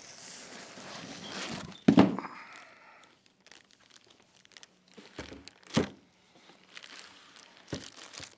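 Plastic packaging bag crinkling and cardboard box rustling as a turntable is lifted out of its box and unwrapped. About two seconds in there is a loud sharp knock that rings briefly, and a few lighter thuds follow around the middle and near the end as it is set down on a table.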